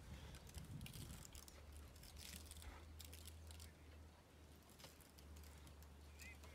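Faint, scattered crackling and crunching of grass as a baby African elephant pulls and chews it while lying down, over a low steady hum.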